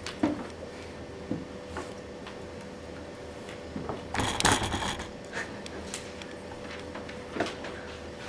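Room tone in a small classroom with a steady faint hum, broken by scattered small knocks and rustles of people handling papers and moving, with a louder rustling burst about four seconds in.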